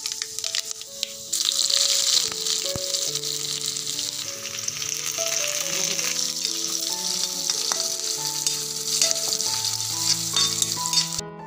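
Mustard seeds crackling in hot oil in a wok, the first stage of a South Indian tempering (thalippu). About a second in, the frying jumps to a loud, steady sizzle as curry leaves and sliced shallots fry in the oil. Background music with stepping notes plays throughout, and the sizzle cuts off suddenly just before the end.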